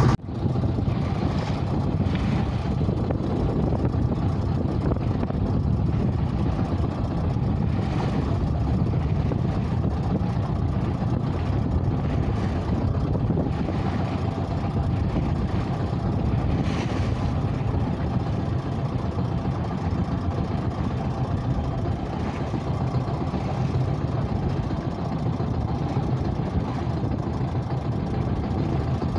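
Small open fishing boat's engine running steadily while underway, with water rushing along the hull.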